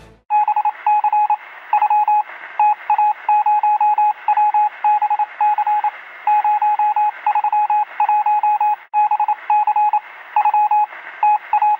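Morse code beeping: a single high tone keyed on and off in quick dots and dashes over a faint radio-like hiss, with a short break about nine seconds in.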